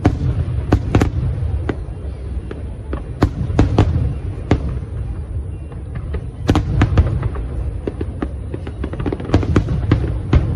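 A fireworks display going off: a steady low rumble of shell bursts with many sharp cracks and bangs at irregular intervals, coming thickest in a cluster about six and a half seconds in and again near the end.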